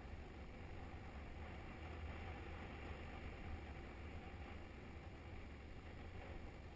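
Steady low rumble of wind on the microphone and tyre noise on tarmac from a bicycle being ridden along.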